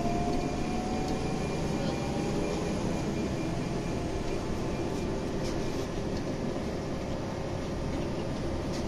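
Inside a Scania OmniLink city bus on the move: steady engine and road rumble. A faint rising whine fades out in the first two seconds or so.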